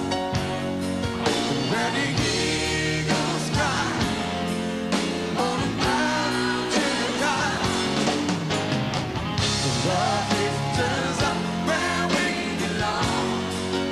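Live pop-rock band performance: a male lead singer singing into a handheld microphone over the band, with a steady beat.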